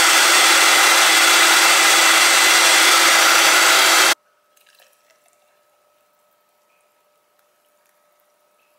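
Countertop blender running at full speed, blending a smoothie of fruit, kale and fresh ginger. It cuts off abruptly about four seconds in, leaving only a faint steady hum.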